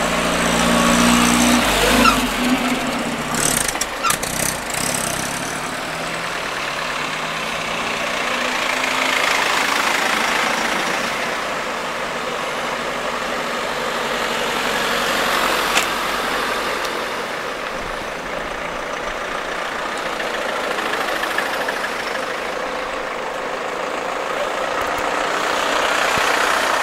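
Engine of a vintage Dodge fire van running as it drives close past, followed by a string of vehicles driving by one after another. Engine and tyre noise swells and fades as each one passes.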